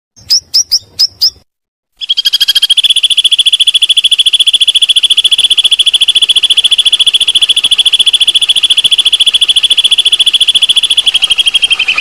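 Javan banded pitta song from a bird-song training recording: five quick, sharp high notes, then after a short pause a long, very fast rolling trill held on one steady pitch, dipping slightly in pitch near the end.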